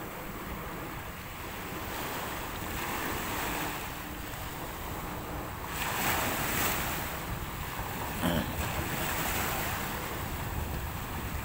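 Small sea waves breaking and washing onto the shore, a steady surf hiss that swells as a wave breaks about six seconds in, with wind rumbling on the microphone.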